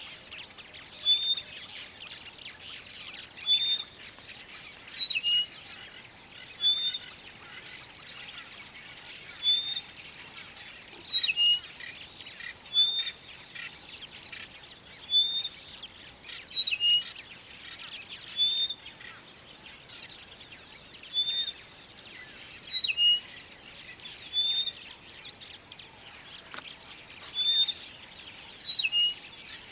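Rosy-patched bush-shrike courtship song: a short, clear, rising whistled note repeated about every one and a half to two seconds, some with a lower note just before it. A busy high-pitched chatter runs underneath.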